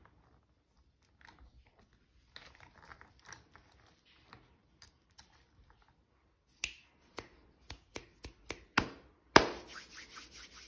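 Hands handling small toy packaging: soft rustling and scraping, then a string of sharp clicks and snaps, and a louder, longer burst of noise a little past nine seconds in.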